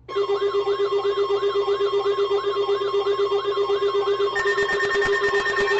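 Electronic emergency-alert tones from a NOAA Weather Radio warning broadcast, starting abruptly. They are a steady tone just above 1 kHz, a pulsing lower tone and a warbling sweep repeating about three times a second. A higher steady tone joins about four seconds in.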